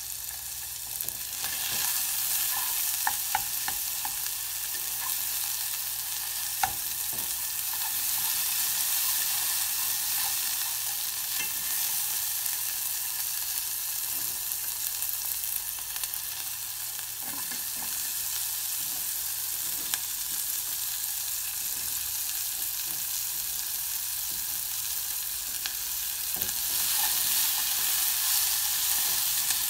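Sliced onions sizzling in oil in a pot while being stirred with wooden chopsticks, which tick against the pot a few times early on. The sizzle gets louder near the end, when carrot sticks are in the pot.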